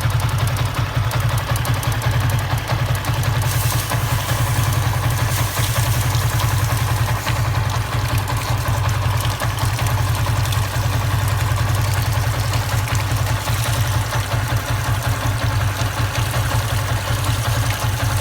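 Yamaha Y15ZR's single-cylinder 150 cc four-stroke engine idling steadily while hot.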